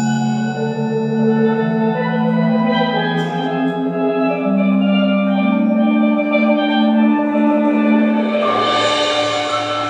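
Live percussion ensemble with a steel pan soloist playing: layered, ringing held notes from steel pan and mallet keyboards such as marimba and vibraphone. About eight and a half seconds in, a shimmering swell and a low note join in.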